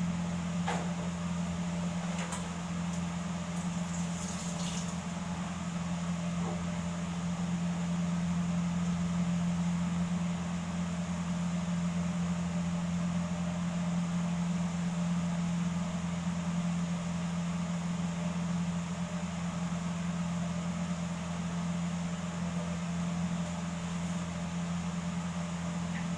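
Steady low machine hum, like an appliance or fan running, with a few faint clicks and rustles in the first few seconds.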